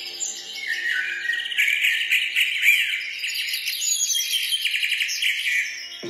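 Many small birds chirping and twittering together in a dense, continuous chorus of quick, high trills.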